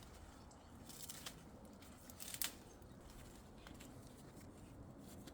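Faint rustling and a few brief scratchy scrapes as bamboo canes and bean plants are handled while the canes are tied in, the clearest scrapes about a second in and about two and a half seconds in.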